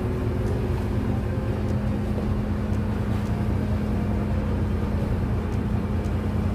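A RORO car ferry's engines running, heard on board: a steady low drone with a constant hum.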